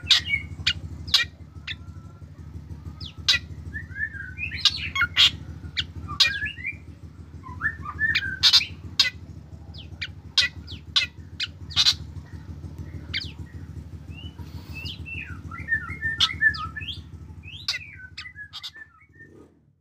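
Black drongo singing: a varied run of sharp, clicking whip notes mixed with warbling, gliding phrases, over a steady low hum. It fades out near the end.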